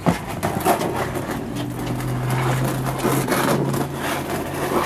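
A steady low motor hum with scattered clicks and knocks over it.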